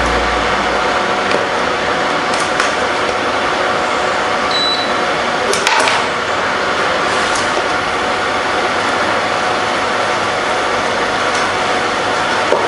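Shrimp and chilies sizzling steadily in a hot pan, with a few light clicks of a utensil against the pan as they are stirred.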